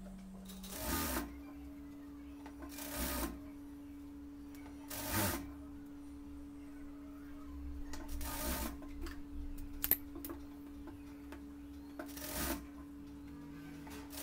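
Industrial single-needle sewing machine stitching in five short runs, each about half a second and the one about eight seconds in a little longer, as strips of fabric are joined end to end. A steady hum runs underneath between the runs.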